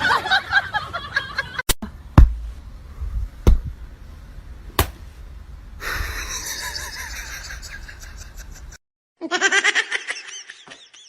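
A person laughing, with a few sharp knocks or smacks, broken up by quick cuts between clips.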